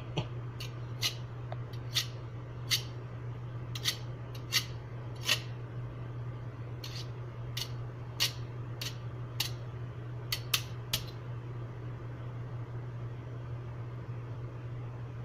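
About twenty sharp clicks at irregular intervals, one or two a second, stopping about eleven seconds in, over a steady low hum.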